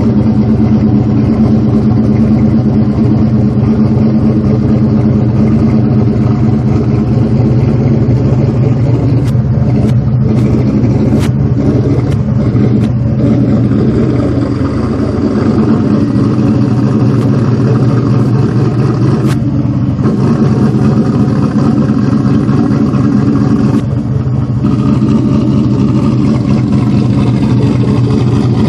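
Built 2003 Ford Mustang SVT Cobra's V8 idling steadily, loud and even throughout.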